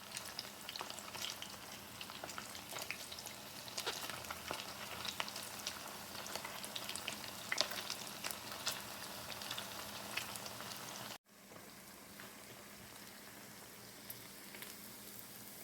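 Food frying in a pan: a steady sizzle with frequent sharp crackling pops. After a sudden break about eleven seconds in, a quieter, even sizzle with only a few pops.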